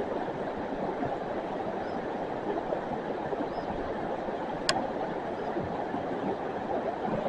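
River water rushing steadily, with one sharp click about four and a half seconds in.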